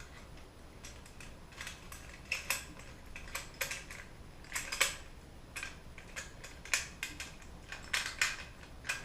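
Parts of a Weslock privacy door lock clicking and clinking as they are handled, fitted together and turned to unlock, about a dozen short sharp metal clicks at irregular intervals.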